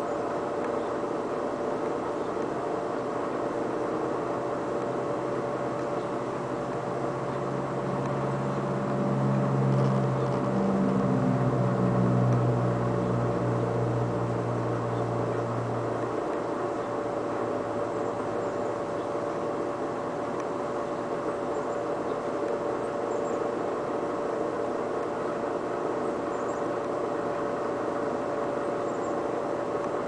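Steady whir of a running air conditioner and fan, with a constant mid-pitched hum. From about seven seconds in, a deeper hum swells, steps up in pitch, and cuts off at about sixteen seconds.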